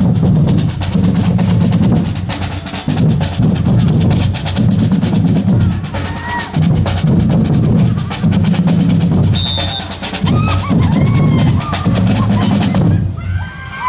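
Street drum band of large metal-shelled surdo bass drums struck with mallets and snare drums, playing a loud, driving rhythm with voices shouting over it. The drumming stops near the end, leaving crowd voices.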